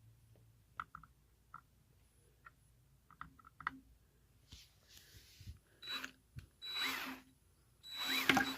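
Cordless drill driving screws to fasten a mortar tube to the rack: a few light handling clicks, then three short runs of the drill, the last the longest and loudest.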